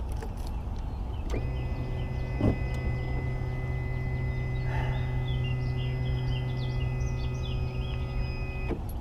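A steady, even-pitched mechanical hum on a boat, starting about a second and a half in and cutting off abruptly near the end. Birds chirp faintly in the background.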